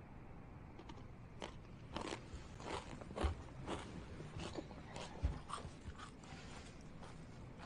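Soft, irregular crunching and small clicks of someone biting and chewing food, about a dozen sharp little sounds that die away near the end.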